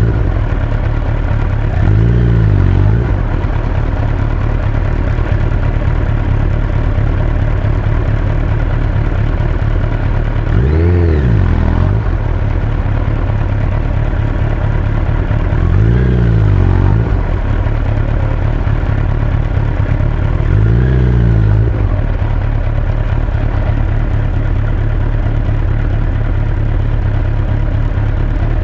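Suzuki Hayabusa GSX-1300R motorcycle's inline-four engine running under way, a loud steady drone whose pitch rises and falls briefly four times.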